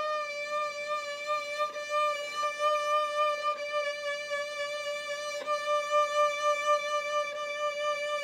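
Violin sustaining a single bowed note, a D near 590 Hz stopped with the third finger, with vibrato from the left arm: an arm (elbow) vibrato demonstration, the pitch held steady apart from small regular swells.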